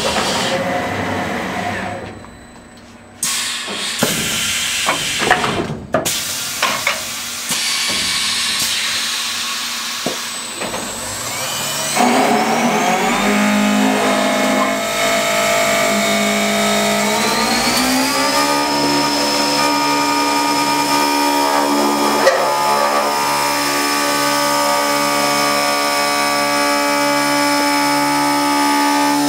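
GH-Tec Challenge 2000 CNC wood copying lathe working a wooden blank. For the first dozen seconds there are irregular clicks and clunks from the mechanism. Then a steady machine whine with several tones sets in, rising in pitch around seventeen seconds in and holding there as the machine runs on.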